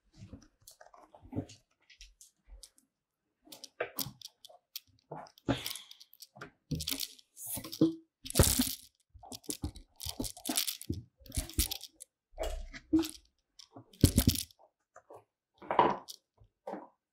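Boxer dog gnawing on a hard chew: an irregular run of sharp cracks and crunches from her teeth, sparse at first and busier from about three and a half seconds in.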